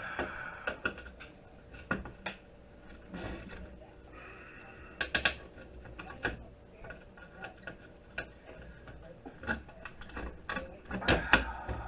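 Irregular light clicks and knocks from a network switch's circuit board and its metal parts being handled and turned over on a work surface, with a cluster of louder knocks near the end.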